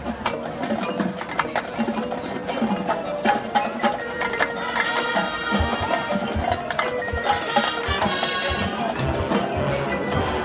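High school marching band playing its field show, with quick struck notes from the front ensemble's marimbas and vibraphones throughout. Held chords come in from about halfway through.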